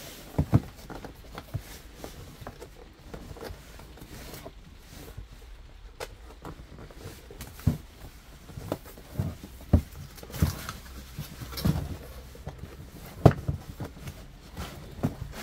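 Cardboard product box being opened and handled by hand: irregular taps, scrapes and rustles of the flaps and sleeve, with a few sharper knocks as the box is moved on a wooden surface.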